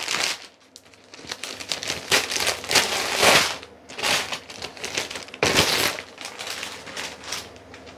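Plastic bag and paper sheet crinkling and rustling in irregular bursts as they are handled and pulled apart.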